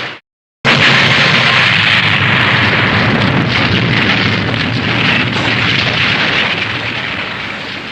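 Explosion sound effect from Showa-era tokusatsu: it starts suddenly, a dense blast of noise full of crackling, then slowly dies away over about seven seconds. The tail of the previous effect cuts off just before it.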